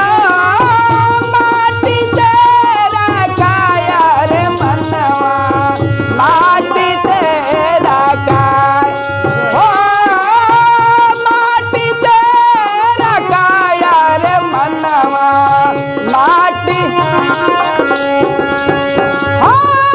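Instrumental interlude of a Hindi devotional song: a melody line with sliding, bending notes over a steady percussion beat.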